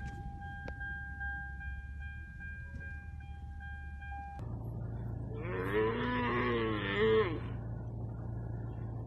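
An animal gives one long, wavering call lasting about two seconds, over a steady low hum, about six seconds in. Before it, a steady single-pitched tone with overtones runs until it cuts off abruptly after about four seconds.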